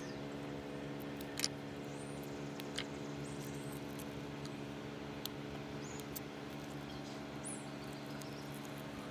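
A few sharp clicks and taps of a kitchen knife against a wooden cutting board while small red onions are peeled and cut, the loudest about one and a half seconds in. Under them is a steady low hum, with a few faint high chirps scattered through.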